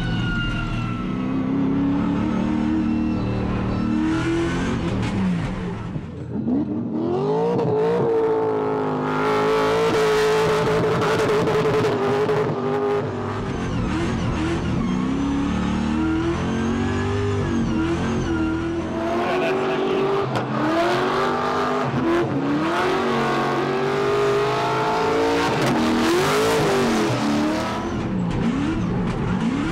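A drift car's engine revving hard, its pitch climbing and dropping again and again through a drift run, over the wide hiss and squeal of sliding tyres. There is a brief dip about six seconds in, after which the revving picks up again.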